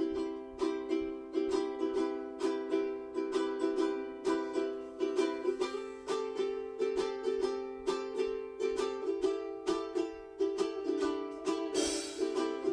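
Background instrumental music: a plucked string instrument picks a steady pattern of notes, about three a second. A short hiss swells near the end.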